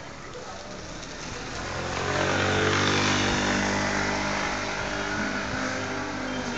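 A small motorbike engine running as it passes close by, getting loud about two seconds in and holding a steady note after.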